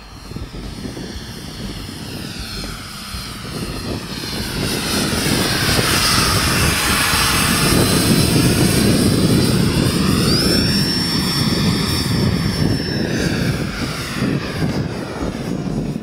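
Electric ducted-fan motor of a Freewing Gripen RC jet flying past, swelling to its loudest in the middle and easing off toward the end. A thin high whine runs through it and steps up in pitch twice in the later part.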